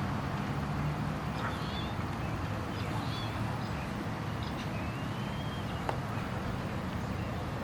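Outdoor ambience: a steady low rumble with a few faint bird chirps and one thin whistled bird call about two-thirds of the way through.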